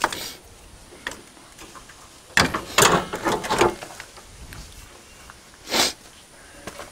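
Tractor's plastic front grille housing being handled and fitted back onto the front frame: scattered knocks, then a cluster of knocks and scraping rubs about two and a half seconds in, and a short rushing scrape near the end.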